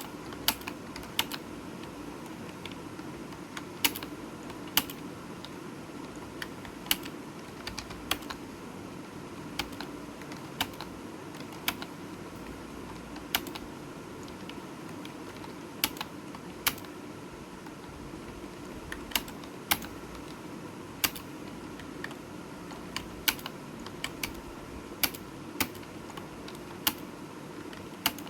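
Typing on a computer keyboard: keys clicking at an uneven pace, with sharper strokes about once a second, over a steady background hum.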